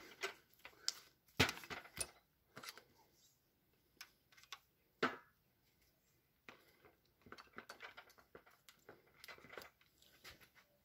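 Scattered clicks, knocks and small rattles of the plastic housing and metal parts of a cordless SDS hammer drill being handled and pulled apart, with a denser run of light clicking in the second half.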